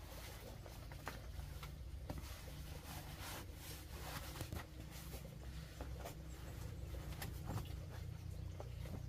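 Rubber rain boots being pulled on and stepped into on a dirt floor: soft rubbing and scuffing with scattered light knocks and clicks over a faint low background rumble.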